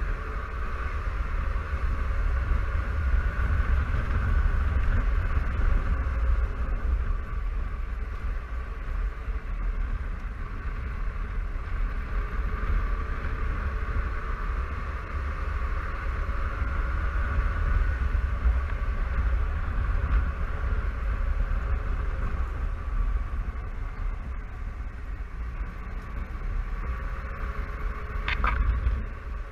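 Honda Silverwing 600 maxi-scooter on the move, heard from the rider's helmet camera: a heavy, steady wind rumble over the engine and drivetrain drone, whose pitch slowly rises and falls with speed. A brief high chirp cuts in near the end.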